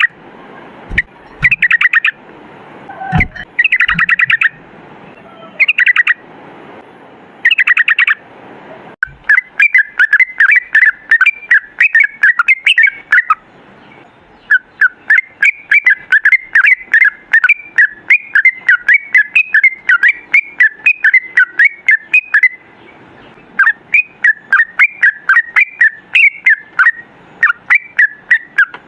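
Yellow-vented bulbul (trucukan) singing: a few short bursts of rapid bubbling notes, then from about nine seconds a long, fast run of chattering song that breaks off only briefly twice.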